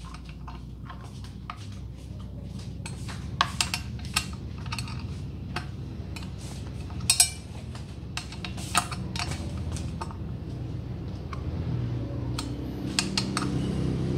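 Plastic and metal parts of an angle-grinder chainsaw adapter clicking and knocking as they are fitted together by hand, with two sharp clicks about 7 seconds in and another near 9 seconds. A low background hum grows louder near the end.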